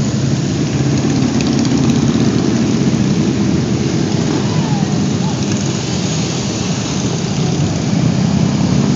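Cruiser motorcycles riding past one after another, their engines running in a steady low rumble.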